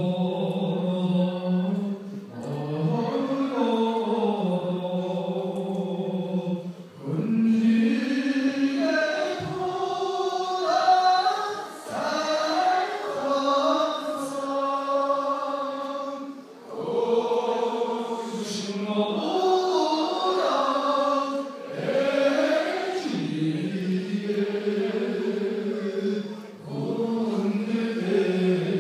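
A man singing solo into a microphone in long, held phrases, with brief breaks for breath about every four to five seconds.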